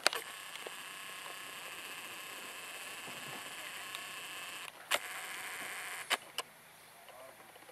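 Camcorder zoom lens motor whirring steadily while the lens zooms in, stopping after about four and a half seconds. Three sharp clicks follow.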